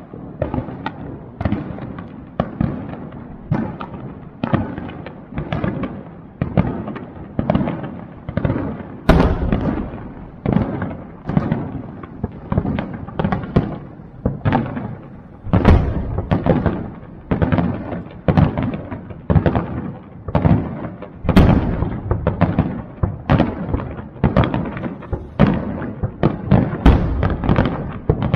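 Aerial fireworks shells bursting in a rapid, continuous barrage of booms, about two a second, with a few louder bangs standing out every several seconds.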